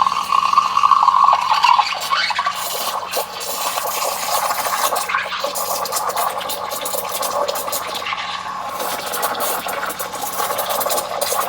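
Steam wand of a DeLonghi espresso machine frothing milk in a cup: a steady hiss and gurgle of steam in the milk, with short crackling spits throughout.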